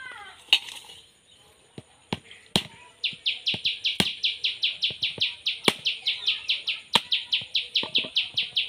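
Sharp knocks of a dao blade striking the hard shell of a wood apple to crack it open, several blows a second or more apart. From about three seconds in, a bird calls a fast, steady run of short high repeated notes, about five a second.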